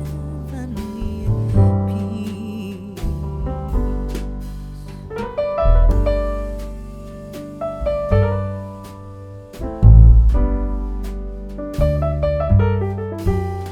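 Background music led by piano, with a deep bass and sustained chords.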